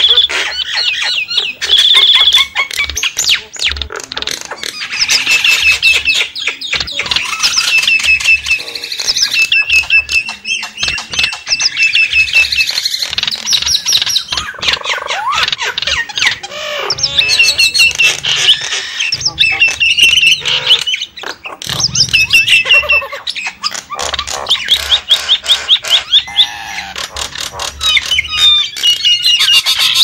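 Javan mynas (jalak kebo) calling without pause: a dense run of harsh squawks, chattering and clicking notes, from a bird-lure recording.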